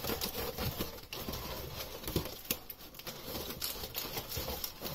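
Flexible aluminium ducting and aluminium tape crinkling and crackling as hands press and smooth the tape around a pipe joint, a run of irregular light crackles.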